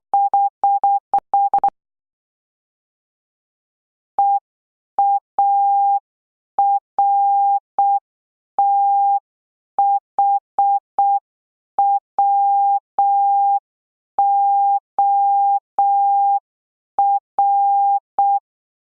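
Morse code practice tones: a single-pitch electronic beep keyed in short and long elements. It is sent quickly for about the first second and a half, then after a two-second pause much more slowly, with long gaps between the beeps.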